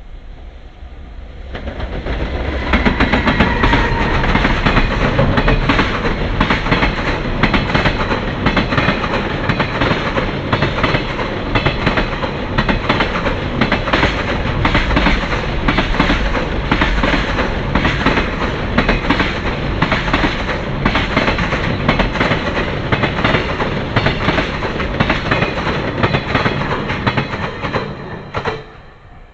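Train on the JR Sanyo Main Line passing close by, its wheels clattering rhythmically over the rail joints. It builds up over the first few seconds, stays loud for about 25 seconds, and cuts off suddenly near the end.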